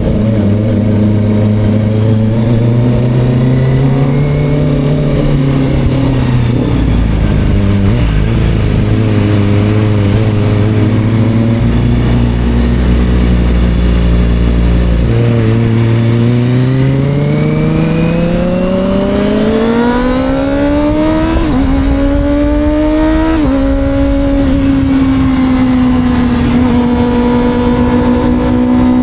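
Sport motorcycle engine running at steady cruising revs, then accelerating with a rising pitch from about 16 seconds in, with two quick gear changes heard as sudden dips in pitch near 21 and 23 seconds. It then holds a steady, higher note, with low wind rumble underneath.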